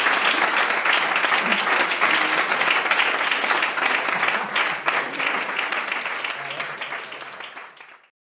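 Audience applauding, a dense patter of many hands clapping that fades away over the last two seconds and stops just before the end.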